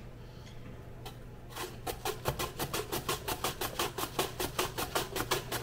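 An apple rubbed rapidly back and forth over a plastic mandoline slicer, starting about a second and a half in as a fast, even scraping of about five strokes a second. The slicer is fitted with the shredding blade instead of the slicing blade, so the apple is being shredded.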